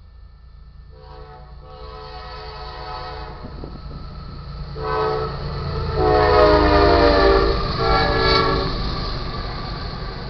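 Multi-chime air horn of a BNSF GE ES44AC diesel-electric locomotive sounding four blasts for a grade crossing, the first and third long. Under the horn the locomotive's rumble grows louder and passes, then tank cars roll by.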